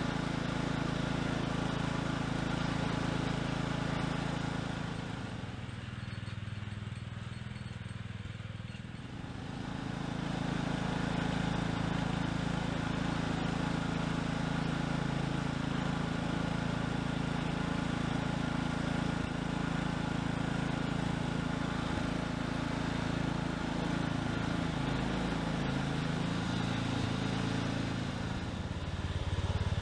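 Garden tractor engine running steadily as the tractor is driven along. It eases off and gets quieter for a few seconds about a fifth of the way in, then picks back up.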